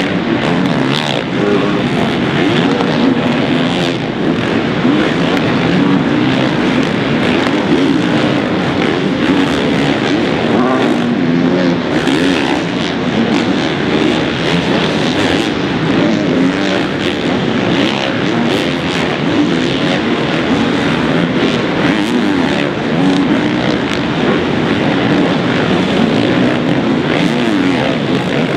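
Several motocross bikes running hard on a supercross track, their engines overlapping and revving up and down as riders throttle on and off through turns and jumps.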